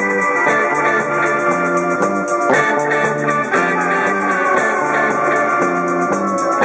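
A live rock band playing: electric guitars and bass guitar over a drum kit, with a fast, even cymbal beat.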